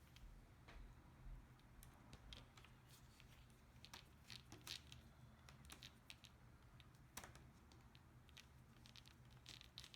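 Faint, scattered clicks and light scraping of small laptop parts and screws being handled while the screen is put back together.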